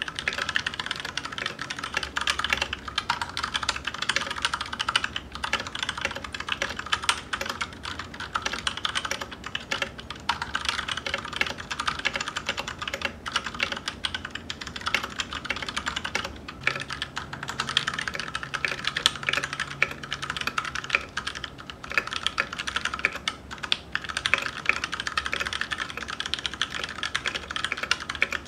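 Fast, continuous typing on a mechanical keyboard fitted with a set of blank keycaps: a dense, steady stream of key clicks and clacks.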